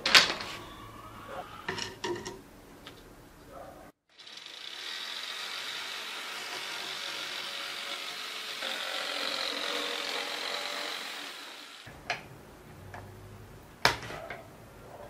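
Knocks and clatter of a board being handled, then a handheld power tool runs steadily for about eight seconds, cutting a sheet laid across bricks, and winds down. Near the end, glass jars and dishes clink as they are set on a wooden table.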